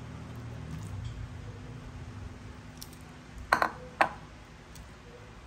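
A metal utensil clinking sharply against a glass mixing bowl a few times, about three and a half to four seconds in, while scooping salmon salad. A low steady hum runs underneath.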